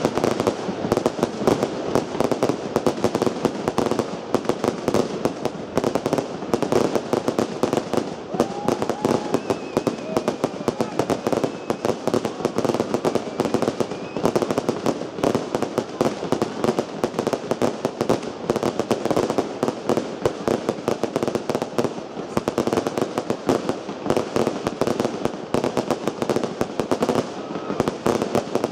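Fireworks display: aerial shells bursting one after another in a dense, unbroken run of bangs and crackles.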